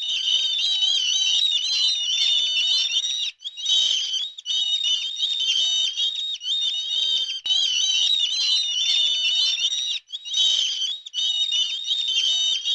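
Songbird singing a continuous, high-pitched, rapid warbling twitter, broken by two brief pauses, about three seconds in and about ten seconds in.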